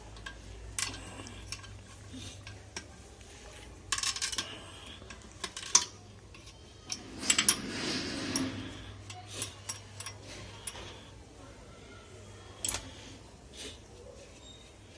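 Metal tools and compressor parts clinking and knocking during hand disassembly of an air compressor, with a stretch of scraping in the middle.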